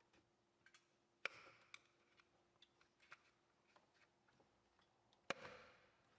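Quiet clicks and taps of tools and parts being handled at an oil separator housing, with two sharper clicks, one about a second in and one near the end, each ringing briefly.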